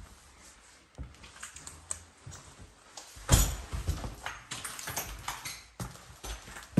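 Footsteps crunching and scraping over plaster debris and rubble on a corridor floor, in irregular steps, the loudest crunch a little over three seconds in.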